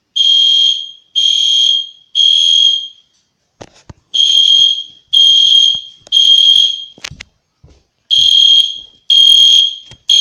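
EST Genesis horn strobe, cover off, sounding its high-pitched horn in the temporal-3 evacuation pattern: three blasts about a second apart, a pause, then again, for three groups in all. Faint clicks and knocks fall in the pauses.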